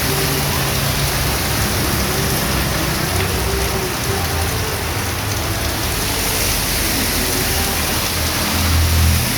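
Heavy rain pouring steadily onto a street and nearby surfaces, a dense, even hiss. A low hum comes and goes under the rain and swells near the end.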